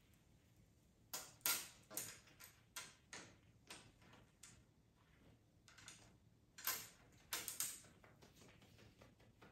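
Wooden colored pencils clicking against one another and the hard tabletop as a hand picks through a row of them: a string of light clicks and clatters, in two busier spells about a second in and near the end.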